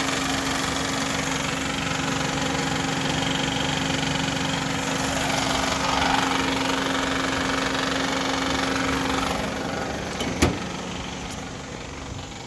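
2010 Honda Civic 1.8-litre four-cylinder engine idling with a rattling noise from the accessory belt drive, caused by a broken belt tensioner pulley. A steady hum runs under it until about nine seconds in. A single sharp click comes near the end, and the sound is quieter after it.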